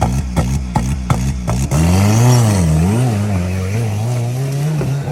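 Off-road competition vehicle's engine revving: its pitch rises and falls a couple of times, then holds at higher revs. In the first second and a half, a lower running note is broken by sharp clicks about three times a second.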